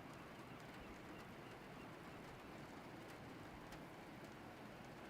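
Faint, steady outdoor ambience: an even wash of noise with a few faint ticks.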